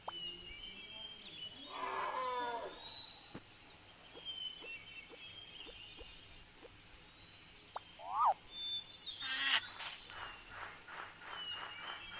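Animal calls: a short call falling in pitch about two seconds in, thin high chirps and whistles scattered throughout, and a fast run of repeated calls near the end.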